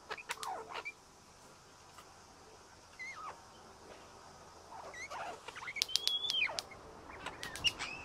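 Bird calls: short whistled notes sliding up and down in pitch, mixed with sharp clicks. They are busiest and loudest in the second half.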